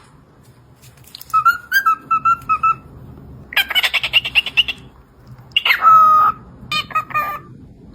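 Pet parrot calling in four bouts: a run of about six short whistled notes, a fast rattling squawk about halfway through, then a held whistle and a few short whistled notes near the end.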